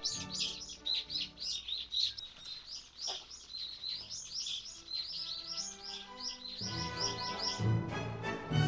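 Background music with many quick, high bird chirps running through it, several a second; a deeper, louder low part of the music comes in about two-thirds of the way through.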